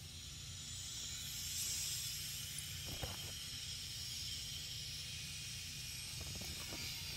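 Steady outdoor background hiss over a low rumble, swelling for a moment about one to two seconds in, with a few faint clicks about halfway and near the end.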